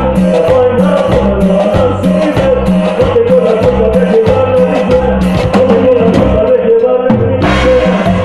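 Cumbia band playing live and loud, with a steady dance beat from drum kit and percussion.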